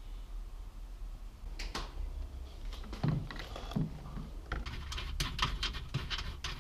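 Scattered plastic clicks and knocks, coming thicker and faster in the second half, as a Toyota GT86 tail-light unit is handled and pushed into place in the car's rear bodywork.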